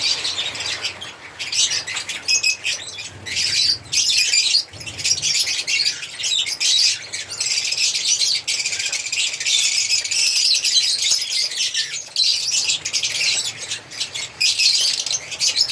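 Several African lovebirds chirping together in a continuous, high-pitched chatter.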